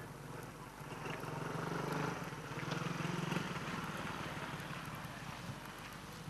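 Small motor scooter engine passing by, growing louder to a peak about two to three seconds in, then fading away.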